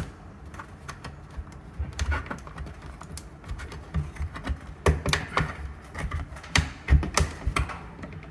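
Irregular clicks and knocks of hands handling things, with a few louder thumps between about five and seven seconds in.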